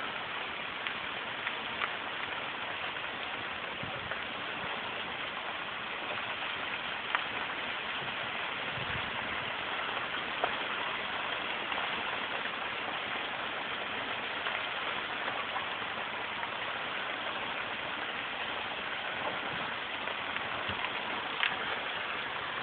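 A large building fire burning: a steady hiss with a few sharp pops scattered through it.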